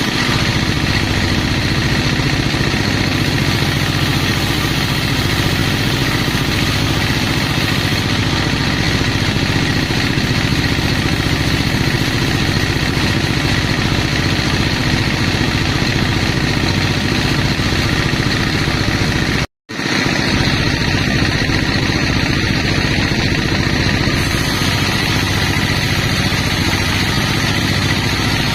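Sawmill machinery running steadily with an engine-like hum and even tones, cutting out for an instant about two-thirds through.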